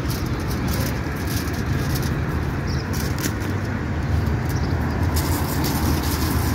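A car driving, with a steady low engine and road rumble.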